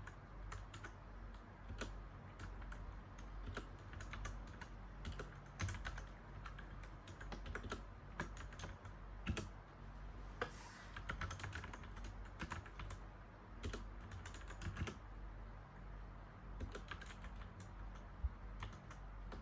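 Typing on a mechanical keyboard: keys clacking in irregular flurries with short pauses between them.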